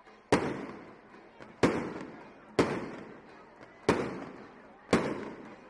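Fireworks salute: five loud single bangs, about one every second and a quarter, each trailing off for about a second.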